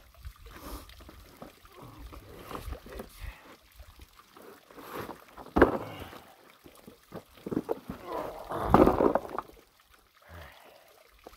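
Black plastic pond liner crinkling and rustling in irregular bursts, loudest about five and a half seconds in and again around nine seconds, over a low rumble of wind on the microphone.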